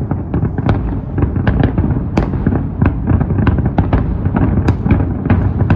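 Many fireworks going off at once: a dense, continuous run of bangs and crackling pops, several sharp cracks a second over a steady low rumble.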